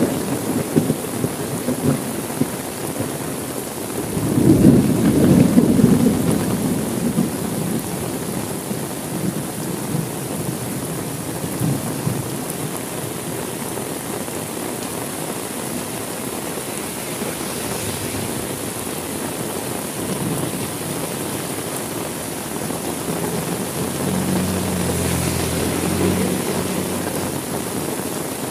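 Steady heavy rain falling, with a rumble of thunder about four seconds in. Near the end a faint low hum rises briefly under the rain.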